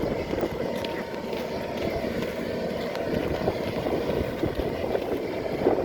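Vehicles driving on a road: steady engine and road noise, with a faint whine and a few light clicks.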